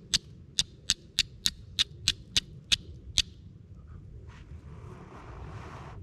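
Steel striker scraping down a piece of flint, about ten sharp strikes at about three a second, showering sparks onto char cloth. The strikes stop after about three seconds once the char cloth has caught an ember, and a soft breathy hiss of blowing on the ember follows near the end.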